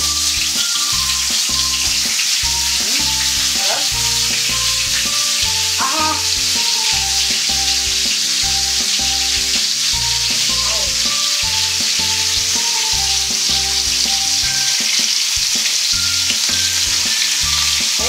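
Flour-dusted shark steaks sizzling in hot oil in a stainless steel frying pan, a steady hiss as the pieces are laid in one by one.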